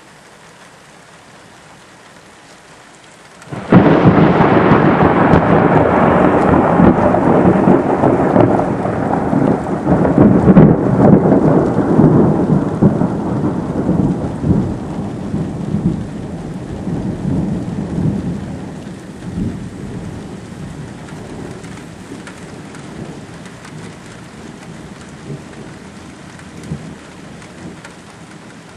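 Steady rain, then about four seconds in a sudden loud thunderclap that rumbles on for some fifteen seconds, swelling again midway before fading back under the rain.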